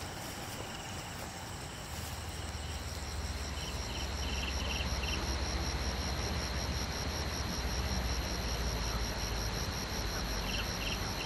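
Insect chorus: a steady, high-pitched pulsing trill, with short clusters of faster chirps breaking in twice. Under it, a low rumble sets in about two seconds in.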